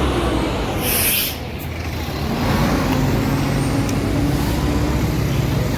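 Large bus diesel engine running close by, with a short sharp hiss of air about a second in, like an air-brake release. After it the engine note holds steady and rises slightly.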